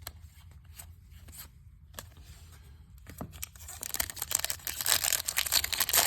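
Plastic wrapper of a baseball card pack being torn open and crinkled, starting about three and a half seconds in and getting louder, after a few light clicks of cards being handled.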